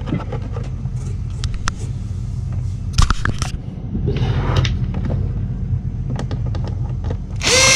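Clicks and knocks of screws and a plastic battery-box lid being handled over a steady low hum, then a power drill-driver spins up near the end to drive a side screw into the lid.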